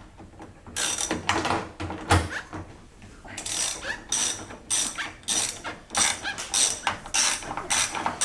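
Ratchet wrench clicking in quick, even strokes, about three a second from a few seconds in, as a door-handle bolt is worked inside a car door. Before that, scattered clicks and a knock.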